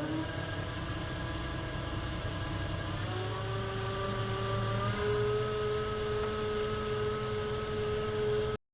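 Wood lathe motor spinning up with a rising whine, then running steadily, its pitch stepping up twice as the speed is raised; it cuts off suddenly near the end.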